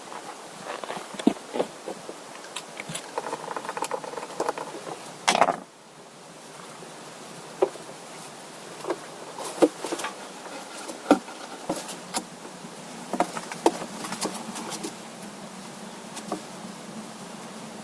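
Irregular sharp clicks and knocks over a steady hiss, with a denser run of them about four to five seconds in ending in a louder knock.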